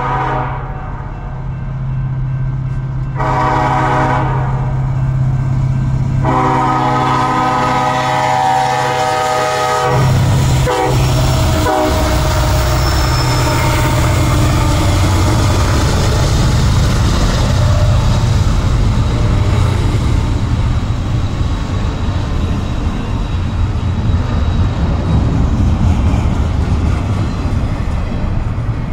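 Union Pacific diesel freight locomotives' air horn sounding the end of a grade-crossing signal: the tail of a long blast, a short blast, then a long final blast that drops in pitch as the locomotives pass about ten seconds in, with the engines running underneath. After that comes the steady rumble and clatter of double-stack container cars rolling by.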